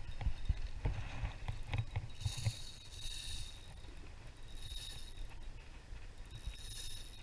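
Daiwa Theory spinning reel being cranked on a retrieve: mechanical reel noise that comes in three short stretches. Low bumps of handling come in the first couple of seconds.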